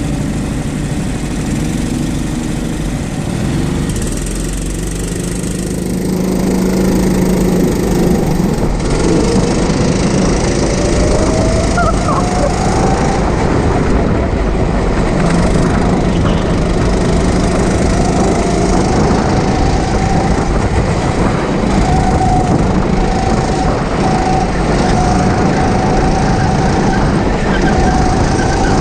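Go-kart engine running, getting louder about six seconds in, then its pitch rising over a few seconds and holding steady at speed.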